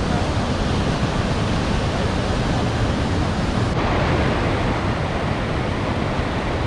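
Tahquamenon Falls: the steady rush of falling water, loud and even throughout. The sound shifts slightly in tone nearly four seconds in.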